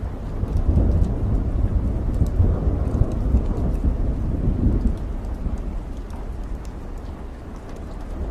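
Steady rain with scattered drop ticks, and a long roll of thunder that swells about half a second in and dies away over the second half.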